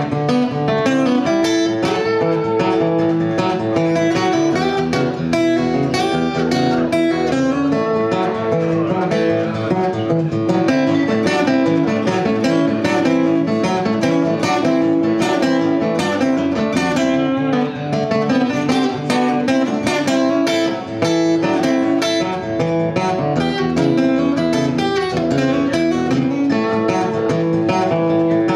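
Two acoustic guitars playing together in an instrumental passage, strummed in a steady even rhythm.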